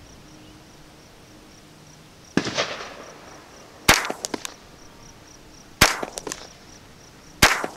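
Ruger 10/22 semi-automatic .22 LR rifle firing single shots: three sharp reports about two seconds apart, each trailed by short echoes, after a duller report about two seconds in.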